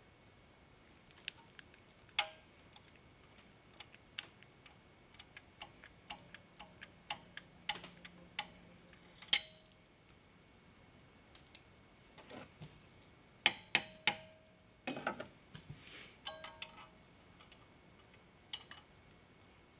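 Irregular small metallic clicks and taps of a hand tool working the knuckles of a sheet-brass hinge, several of them leaving a brief ring from the brass plate. The clicks come in loose clusters, busiest and loudest a little past the middle.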